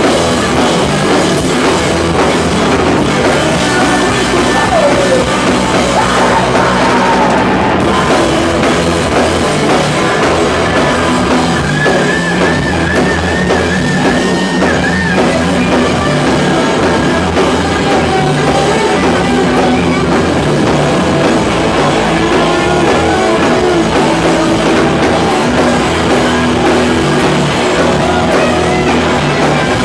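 Rock band playing loud and without a break: electric guitars, bass and a drum kit.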